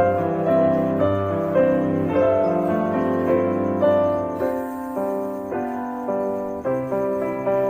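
Background music: a gentle piano-like keyboard melody with a steady pulse.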